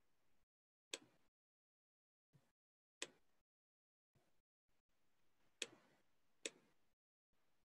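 Four sharp computer mouse clicks spread over several seconds, with a few fainter ticks between them and dead silence in the gaps.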